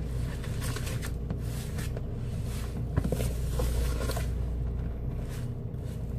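Hand mixing a moist Parmesan breadcrumb topping in a plastic bowl: irregular soft rustling and scraping strokes, with one sharp click about three seconds in, over a steady low hum.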